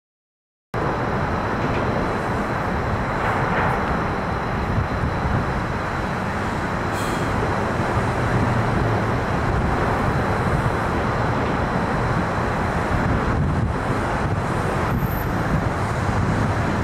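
Steady outdoor rumble of road traffic mixed with wind buffeting the microphone, after a moment of silence at the very start.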